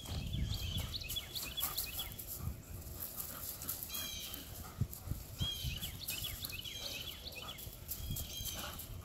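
A songbird chirping in short, repeated bursts of quick phrases, over the scuffing of dogs' paws on leaf-littered dirt as they trot and run along a fence.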